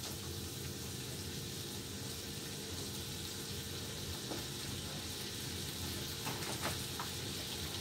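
Diced chicken frying in oil in a pan, sizzling steadily, with a few faint ticks.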